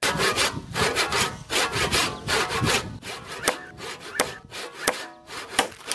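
Four-wheel-drive vehicle's tyre spinning and churning in deep mud: an uneven, rough rasping with sharp irregular spatters.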